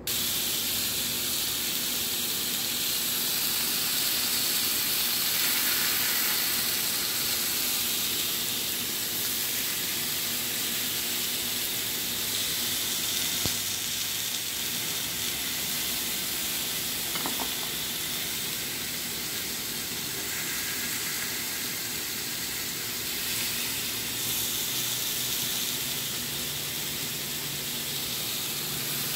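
T-bone steak sizzling steadily in a ridged grill pan.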